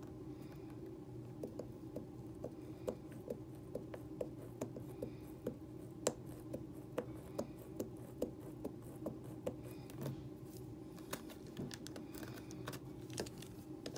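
Small handheld drill boring holes into a plastic slot-car chassis: a run of short clicks and scrapes, about two to three a second, growing faster and more irregular near the end, over a steady low hum.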